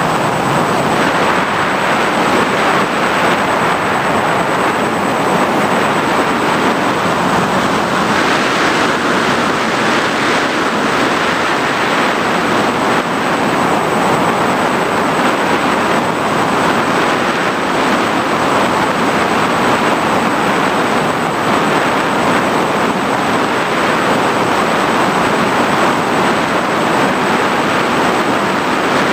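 Onboard sound of an FPV drone in flight: a steady rush of propeller and wind noise with a faint, constant high whine, unchanging throughout.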